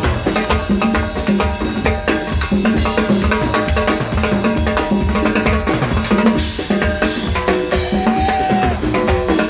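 Latin rock band playing live: a driving drum and percussion groove with rimshot-like strikes, under bass and pitched instrument lines, with a single held note near the end.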